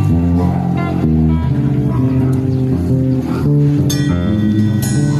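Live band jamming at a sound check: electric bass and guitar playing a run of changing sustained notes and chords, with bright struck accents added from about four seconds in.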